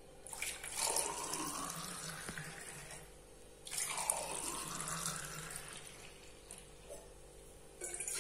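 Carrot juice being poured into two drinking glasses, one after the other: two pours of a few seconds each, the second starting about three and a half seconds in. A short noise comes near the end.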